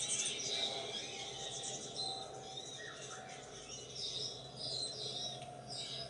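Hummingbirds chirping: many short, high, thin chips, over a faint steady hum.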